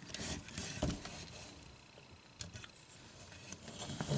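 Plastic action figures being handled: scattered light clicks and knocks, the sharpest just under a second in and a few more near the end.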